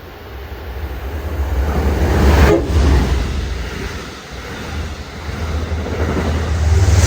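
Amtrak passenger train led by a GE P42 diesel locomotive passing at speed, a heavy low engine and wheel-on-rail rumble. It swells to a loud peak about two and a half seconds in, eases off, then builds again near the end.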